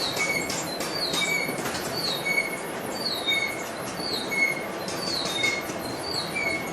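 A machine tool cutting metal, with a short high squeal repeating about once a second over a steady hiss of cutting noise.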